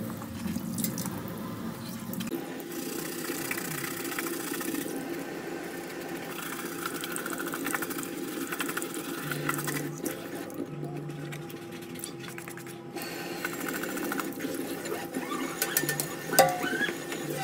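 Tap water running into a stainless steel kitchen sink while a child's sneaker is scrubbed with a toothbrush, the brushing strokes scratching over the wet shoe.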